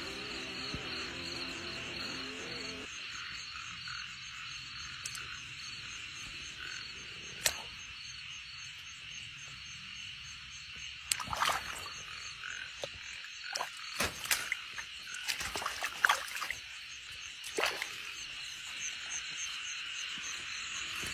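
A steady chorus of frogs calling. From about eleven seconds in it is broken by irregular splashes and sloshes as a hand works in shallow muddy water.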